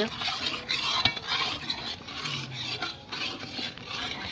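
A metal spatula scraping and stirring wheat flour around the bottom of a large iron kadai in repeated strokes, the flour being dry-roasted over a wood fire.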